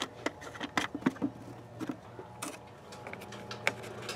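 Irregular light clicks and taps, several a second, of hands handling the plastic brake master cylinder reservoir and its cap.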